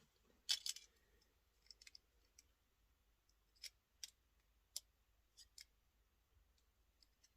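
Faint, scattered clicks of small plastic Lego pieces being handled and pressed together, the loudest a quick cluster about half a second in, then single clicks every second or so.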